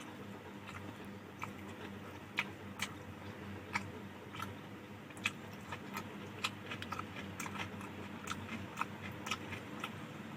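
A person chewing a mouthful of rice and fish curry close to the microphone: irregular sharp mouth clicks and smacks, over a steady low hum.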